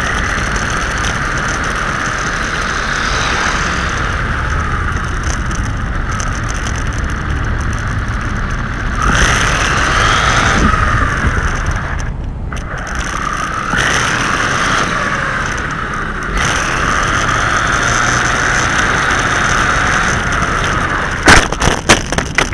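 WLtoys 12628 1/12-scale 6x6 RC truck's electric motor and gearbox whining as it drives, rising and falling with the throttle and dropping out briefly about halfway through. Near the end, a quick run of sharp knocks as the truck runs into a curb.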